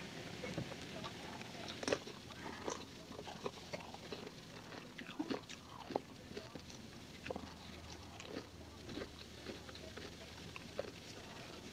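Eating sounds close to the microphone: a plastic fork clicking and scraping in a plastic food container, with biting and chewing.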